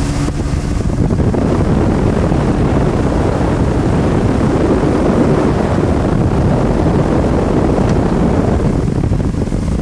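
A 1995 Johnson 200 hp two-stroke outboard running steadily at planing speed, around 30 mph, mixed with the rush of water along the hull and wind buffeting the microphone.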